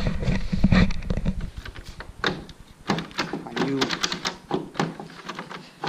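Hood safety catch on a 2004 VW GTI being worked by hand at the front of the hood: a run of quick clicks and light knocks. A dull low rumble of handling noise comes first.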